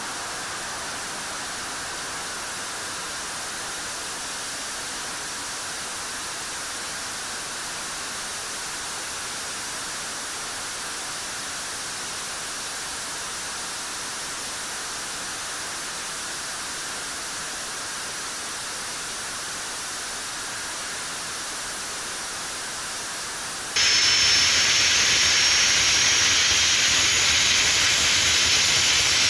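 Jet engine running on a test stand, a steady rushing noise. About 24 seconds in it gives way abruptly to a louder, brighter rush with a thin high whine: a Rolls-Royce test engine burning hydrogen.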